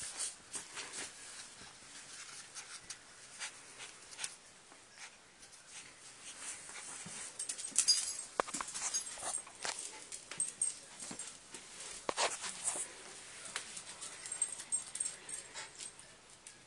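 Small Havanese dog scrabbling and pawing at fabric on a bed, with quick scratching and rustling strokes that are busiest in the middle, and soft whimpers.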